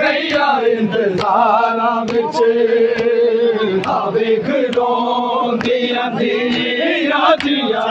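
Crowd of men chanting a Shia noha lament together, with sharp hand-on-chest matam slaps landing about once a second.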